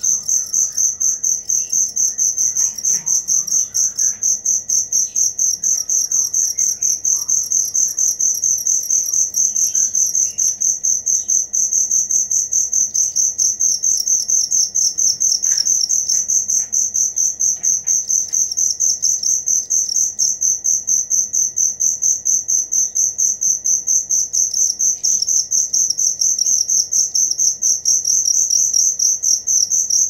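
Cricket singing a continuous high-pitched trill of rapid, even pulses.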